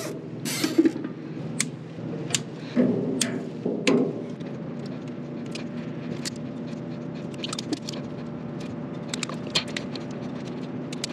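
Scattered small clicks and rattles from wires, crimp connectors and a small electrical relay being handled, more frequent near the end, over a steady machine hum.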